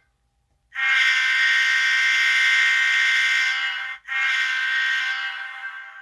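Sampled diesel locomotive air horn from an ESU LokSound 5 Micro sound decoder in an N-scale GE U25B, played through the model's small speaker. It gives a long blast of about three seconds, then a second blast that trails away.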